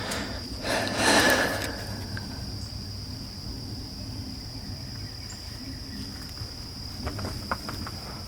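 Insects, crickets or similar, droning in one steady high tone over a low background rumble. About a second in comes a brief, louder rush of noise, and a few faint clicks follow near the end.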